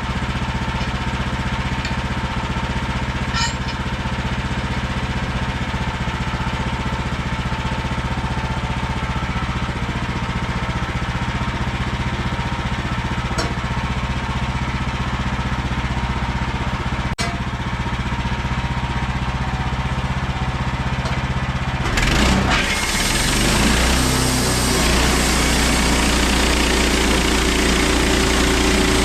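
Sawmill engine running steadily; about three quarters of the way through it gets louder and fuller, as when it is brought up to speed.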